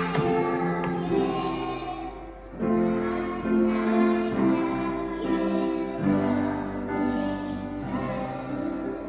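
Young children singing a song together, held notes moving step by step, over instrumental accompaniment.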